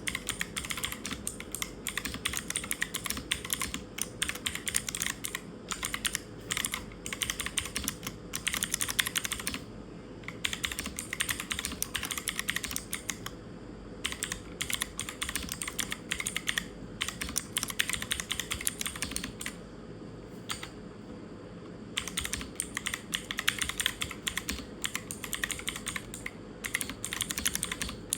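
Mechanical keyboard with clicky switches being typed on in fast runs of keystrokes, broken by a few brief pauses.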